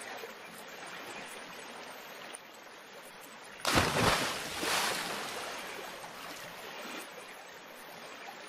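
Steady lapping water with a loud splash about four seconds in as a fisherman's cast net hits the water.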